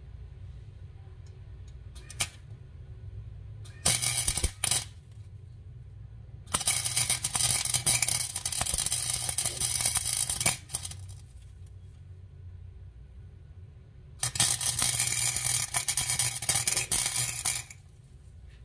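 Wire-feed (MIG) welder arc crackling and hissing as a hex nut is welded onto a steel threaded rod. There is a brief blip, then two short tacks about four seconds in, then two longer welds of about four and three seconds, over a steady low hum.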